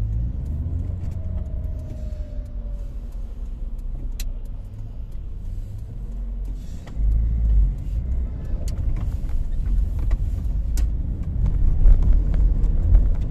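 Car heard from inside the cabin while driving: a steady low engine and road rumble that grows louder about seven seconds in, with a few scattered clicks and rattles.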